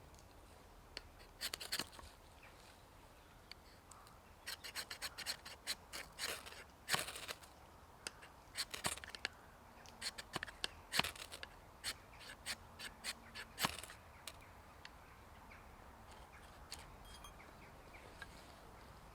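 Knife blade scraping and shaving wood in a run of short, irregular strokes that stop about two-thirds of the way through.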